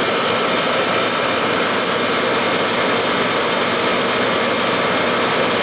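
Vintage General Electric air conditioner's compressor unit running, a loud, constant machine noise with faint steady tones through it.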